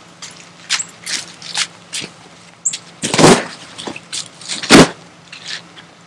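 Handling noise from a deflated inflatable kayak and its plastic fittings: scattered clicks and rustles, with two louder thumps about three and about four and a half seconds in.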